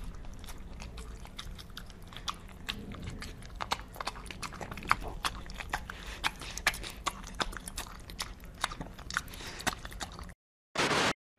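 Kitten lapping milk from a bowl: a run of small, irregular wet clicks. A short louder burst comes near the end.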